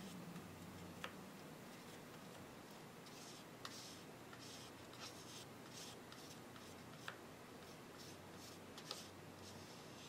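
Faint scraping strokes of a card spreading thermal paste thinly across a CPU's metal heat spreader, with four light clicks along the way.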